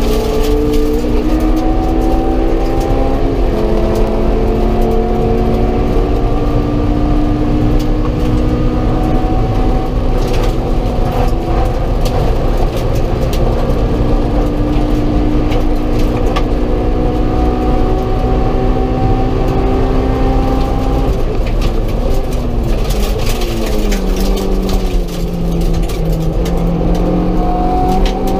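Honda S2000's four-cylinder engine at racing speed, heard from inside the cabin. Its pitch climbs to an upshift about three seconds in, then holds high and slowly rises in a long flat-out run. About 22 to 26 seconds in it steps down through braking and downshifts, then climbs again near the end.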